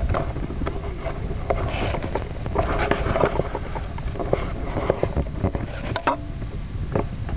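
Double-bladed paddles dipping and splashing in lake water in uneven strokes, with wind rumbling on the microphone.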